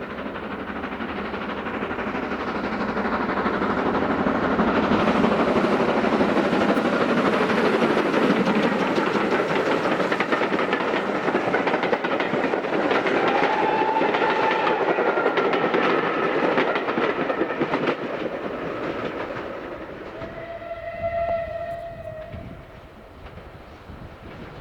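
A steam-hauled train passing, its noise building to a loud, steady rush of running and rail noise, then fading away. About three quarters of the way through, a short whistle note sounds.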